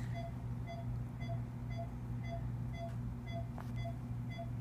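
Surgical patient monitor beeping steadily, about two short beeps a second, following the anaesthetised cat's heartbeat, over a steady low hum of equipment.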